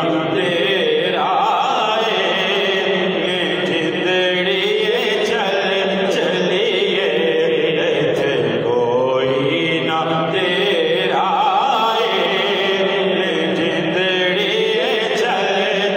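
Men's voices in a continuous, melodic devotional chant that carries on without pauses.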